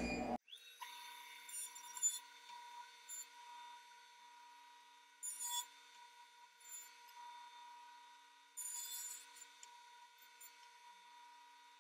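Jointer cutting the face of a thick walnut board on a light pass of about a sixteenth of an inch. There is a steady high whine from the running machine, with irregular bursts of hiss as the knives bite the wood, all faint.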